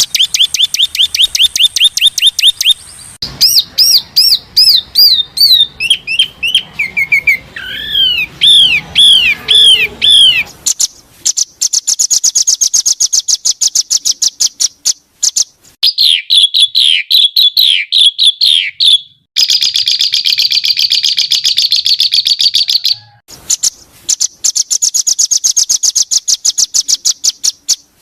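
Songbird song spliced together for song-tutoring: rapid series of high, sweeping chirps and buzzy trills. The calls switch abruptly from one pattern to another several times, with brief dead gaps at the edits.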